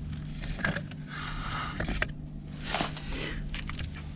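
Small metal hand tools and parts being handled and rummaged through, with irregular scrapes and several light clicks over a steady low hum.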